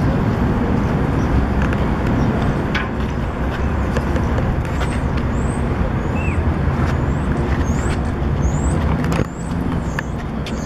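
New York City subway train running on the elevated track, a steady heavy rumble with scattered clicks and a few faint high squeaks. It eases off slightly about nine seconds in.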